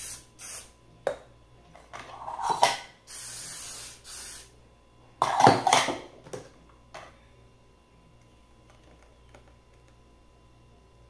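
Aerosol release-agent spray hissing as an aluminium cake pan is greased: short bursts at the start and one steady burst of about a second around three seconds in. Metal clatter of the aluminium pan being handled, loudest when it is set on the kitchen scale about five seconds in.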